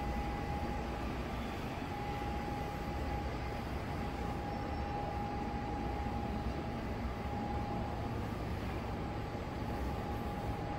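Steady vehicle rumble with a constant humming tone running through it, unchanging throughout.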